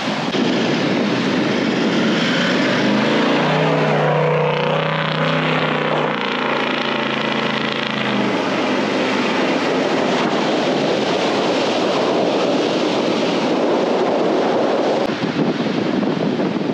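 Toyota LandCruiser 70-series dual-cab ute driving through soft beach sand, its engine running and tyres churning the sand. The engine tone stands out most as the vehicle passes close, a few seconds in, over a steady rushing noise.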